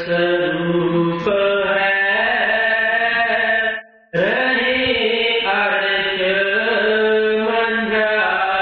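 A man's voice chanting a devotional verse in long, drawn-out melodic notes, breaking off briefly for breath about four seconds in before carrying on.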